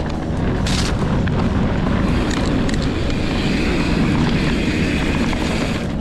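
Wind buffeting an action camera's microphone, mixed with the rumble and hiss of mountain bike tyres rolling over a dirt trail; the hiss grows stronger from about two seconds in.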